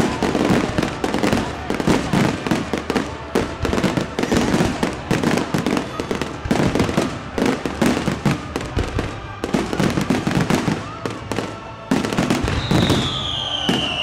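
Fireworks display: many shells bursting in rapid, overlapping bangs and crackles. Near the end a single high whistle falls in pitch over about a second and a half, as from a whistling firework.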